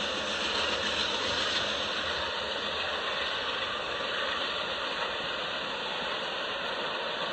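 LEGO toy train running on plastic track: a steady whirring, rattling mechanical noise from its motor and wheels.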